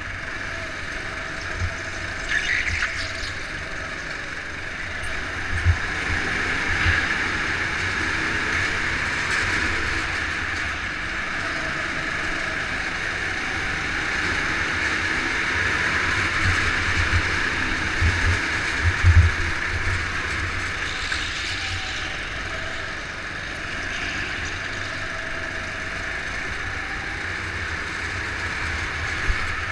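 Go-kart engine running at racing speed, heard from on board the kart. Its pitch drifts up and down a little through the corners, with occasional low thuds.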